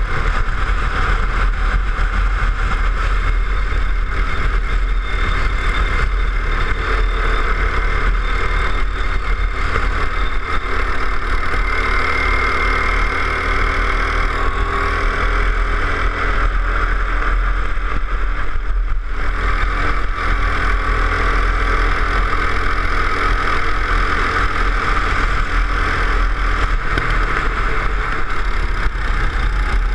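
Go-kart engine running hard, heard from onboard while lapping, its pitch rising and falling gently with the throttle through the corners. There is a brief dip in the sound about two-thirds of the way through.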